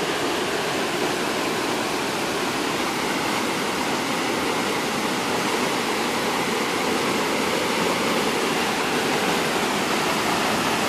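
Creek in flood: fast, muddy floodwater rushing steadily.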